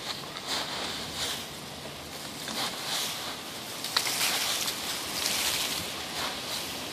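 Dry fallen autumn leaves rustling and crackling as they are kicked through and tossed into the air, with a sharper crunch about four seconds in.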